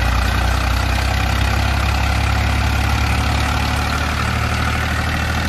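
Steady, low engine drone like a tractor idling, heard as the miniature model tractor drives along pulling its trailer.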